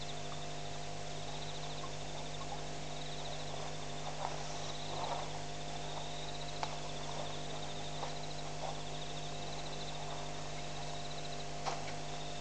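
A small night creature's high, pulsed trill, each trill about a second long, repeated every couple of seconds, over a steady electrical hum. A few faint clicks and soft rustles come through in between.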